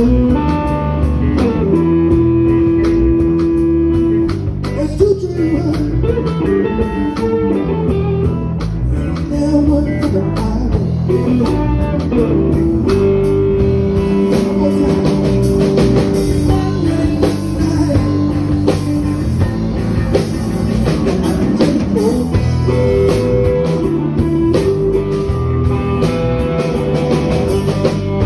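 Live blues band playing electric blues: a lead electric guitar plays long held notes that bend in pitch, over a steady band backing with drums.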